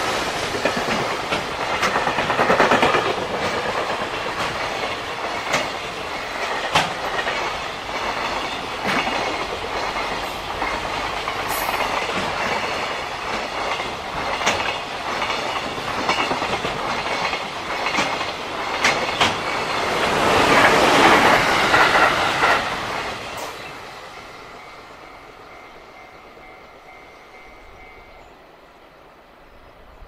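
Container freight train hauled by an EF210 electric locomotive passing close by: a steady rumble of wheels on rail with irregular clicks and clatter over the rail joints. It is loudest about three quarters of the way in, then fades away quickly as the last wagons pass.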